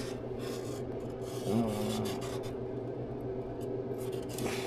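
A marker pen scratching in short strokes, marking out on tape, over a steady low hum.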